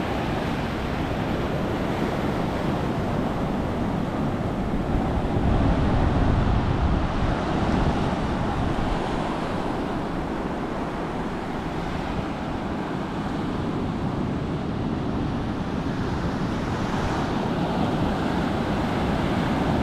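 Surf breaking and washing up a sandy beach, with wind noise on the microphone, a little louder for a couple of seconds about six seconds in.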